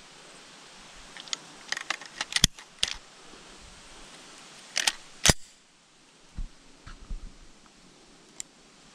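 Metallic clicks and clacks of a 1942 Reising Model 50 submachine gun being handled as it is readied to fire: a run of sharp clicks, then a louder clack about five seconds in, followed by quieter handling.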